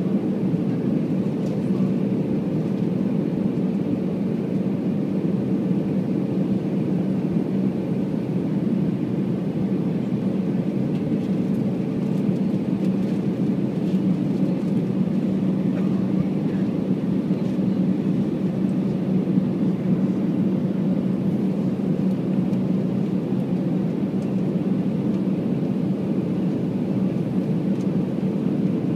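Steady cabin drone of an Airbus A319's CFM56 turbofan engines and rushing airflow, heard from a seat by the wing during the descent to land, with a low steady hum in it.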